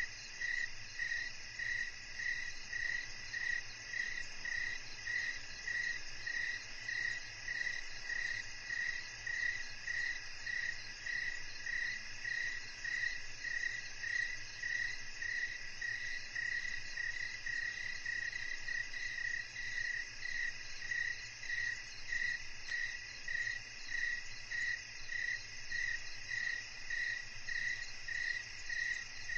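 Evening chorus of crickets: a steady, even chirping about twice a second, over a continuous high-pitched trill of other insects.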